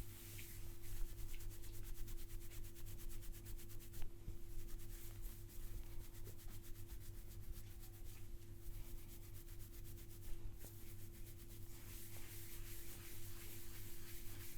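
A barber's hands rubbing rapidly and evenly in a massage, a fast scratchy rustle of strokes over a steady low hum.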